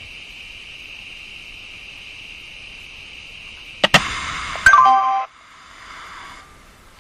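Upper-arm blood pressure monitor: a steady high hiss, then about four seconds in a click and a loud rush of air with a tone stepping down in pitch as the cuff is let down, stopping abruptly after about a second and a half, followed by a fainter fading hiss.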